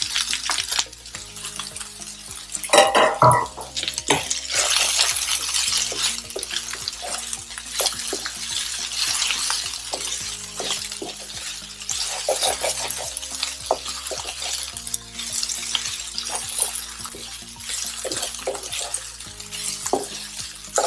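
A spatula scraping and tapping around a frying pan as sliced spiny gourd and onions are stirred, with a soft sizzle of frying underneath. There is one louder knock about three seconds in.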